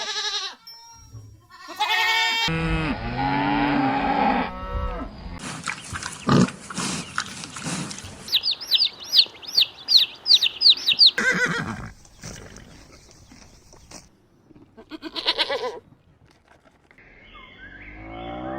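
A run of farm animal calls, cattle mooing among them, with a quick string of about ten high falling peeps in the middle.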